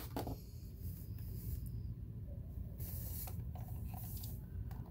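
Hands picking up and turning over a plastic portable cassette player (Sharp JC-128): a click at the start, then faint rubbing and scraping of the plastic casing in a few short spells, over a steady low hum.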